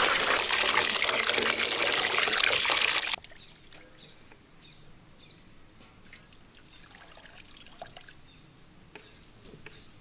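Water pouring into a steel bowl of minced chicken to wash it, splashing loudly, then stopping abruptly about three seconds in. After that, faint wet squelches and clicks of hands working the mince, with a few bird chirps.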